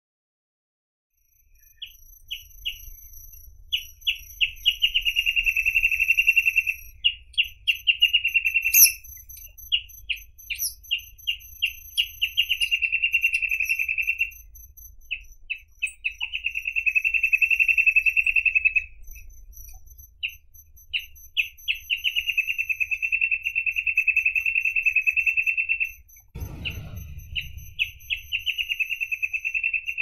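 Reed parrotbill (Paradoxornis heudei) singing, starting about two seconds in. Each of about five phrases opens with a few short separate high notes and runs into a long, fast, buzzy trill. A faint low rumble sits underneath, with a brief low whoosh near the end.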